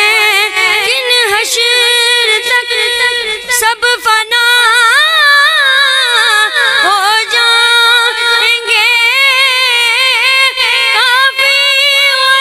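A boy singing an Urdu naat unaccompanied into a microphone. He holds long, wavering notes in a high voice, with ornaments that bend up and down on each held note.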